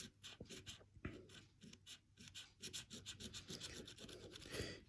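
Coin scraping the coating off a lottery scratch-off ticket, faint, in quick repeated strokes.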